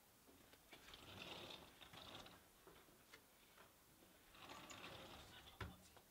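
Faint handling noises: two spells of soft rustling with scattered light clicks, and a sharper knock near the end.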